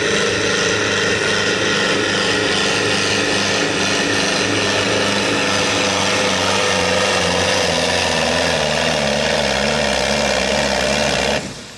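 Valmet 705 tractor's Sisu diesel engine running hard at full throttle under heavy load while pulling a weight-transfer sled, its pitch wavering in the later seconds. The sound cuts off abruptly near the end.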